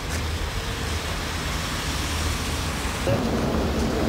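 City street ambience: steady traffic noise with a low rumble. About three seconds in it changes abruptly to a louder, fuller street sound.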